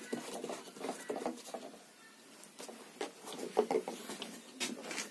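Scattered light clicks, taps and rustles of a plastic fuel can being handled and readied to refuel a chainsaw.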